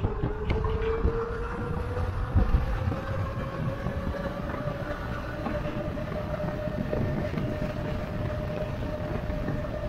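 Electric bike motor whining while riding, its pitch rising over the first few seconds as the bike picks up speed and then holding steady. Beneath it is a constant low rumble of wind buffeting the microphone and tyre noise.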